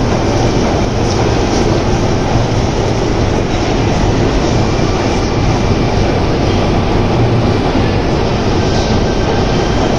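Moscow metro train in motion: a loud, steady rumble that holds unchanged throughout.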